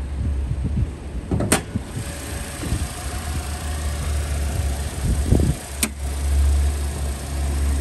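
Hood of a Toyota Corolla being raised, with two sharp clicks about a second and a half and six seconds in and a few knocks, over a steady low rumble.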